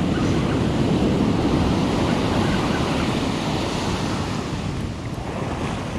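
Ocean surf breaking and washing up the beach, with wind buffeting the microphone; the wash is strongest in the first couple of seconds and eases slightly toward the end.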